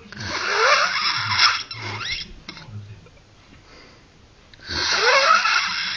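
Snoring: two long, loud snores about four and a half seconds apart, each with a whistle that rises in pitch, quiet between them.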